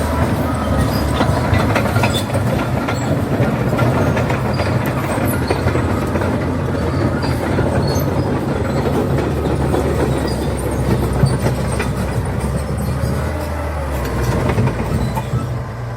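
Caterpillar D8T crawler dozer's diesel engine running steadily while its steel tracks clank and squeal as the machine moves. The engine note changes near the end.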